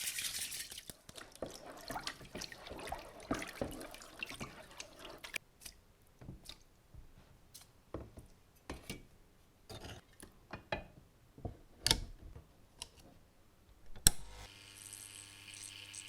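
Water splashing and dripping, with scattered sharp clicks and knocks as metal parts are handled in it. Near the end a steady electric hum starts.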